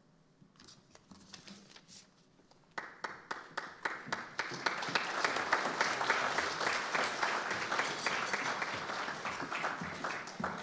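Audience applauding: a few scattered claps at first, then the whole audience joins in about three seconds in, and the clapping thins out near the end.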